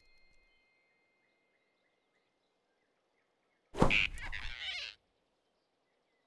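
Cartoon sound effect of a sudden whoosh and grab, a big rabbit snatching a flying squirrel in his fist, lasting about a second and starting a little past halfway. Before it there is near silence with faint bird chirps.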